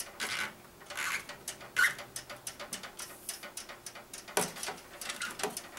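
Flexible water-cooling tubing being handled and worked onto a fitting inside a PC case: irregular rustling and scraping with small clicks, as the tubing rubs against itself and the case.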